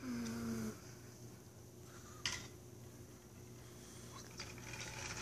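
A brief hummed voice sound at the start, then quiet room tone with a short hiss about two seconds in.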